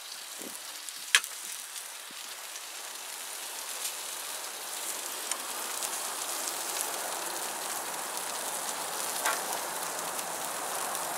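Sausages sizzling on a hot barbecue grill grate: a steady hiss that grows a little louder, with one sharp click about a second in.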